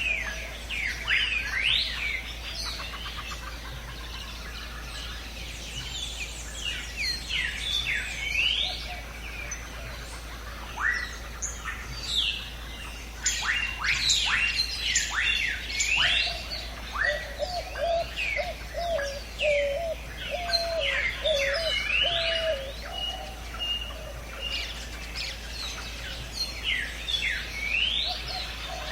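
Several birds chirping and calling over one another in quick sweeping whistles. A lower call of short repeated notes joins for several seconds in the middle.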